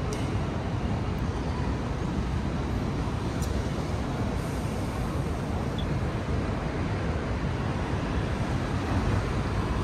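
Steady road traffic noise: a constant low rumble of passing vehicles, with no distinct events standing out.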